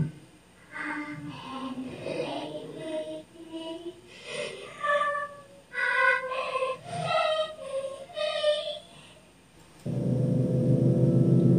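Horror-style sound effects: a high voice singing short, broken phrases, then about ten seconds in a loud, steady low drone starts suddenly.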